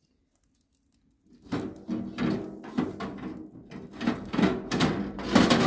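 A piece of pork fat held in grill tongs, rubbed back and forth across a hot charcoal grill's grate in repeated scraping strokes, starting about a second and a half in. This is greasing the grate before the meat goes on.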